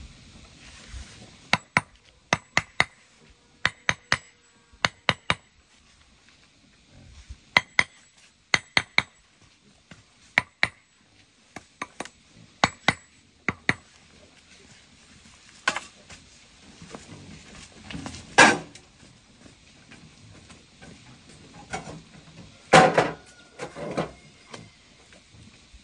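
Concrete blocks being tapped level into fresh mortar with a mason's trowel: sharp, ringing taps in quick twos and threes for about twelve seconds. Then a few louder clanks and knocks.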